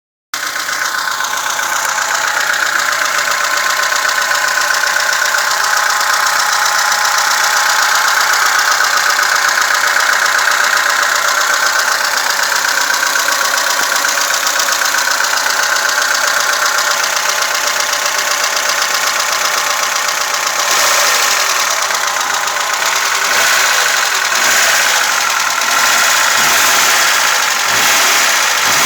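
VAZ 2106 inline-four engine running with a rapid, steady valve tapping from the valvetrain. The level swells a few times in the last third.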